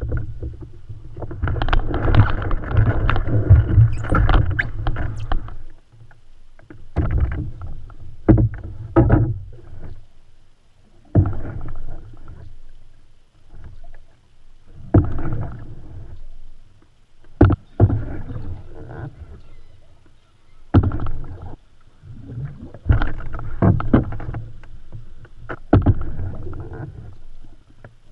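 Canoe paddle strokes in lake water: a stretch of continuous splashing and sloshing for the first few seconds, then single strokes every two to three seconds.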